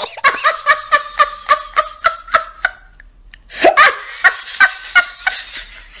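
Young women laughing in two bouts of quick, rhythmic 'ha-ha' pulses, with a short pause between them about three seconds in.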